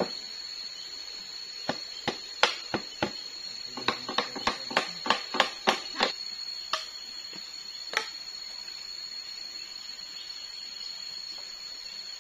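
Machete chopping and splitting damp wood to get at the dry inner wood for tinder: a string of sharp strikes, quickening to about three a second in the middle, with a last single strike a couple of seconds later.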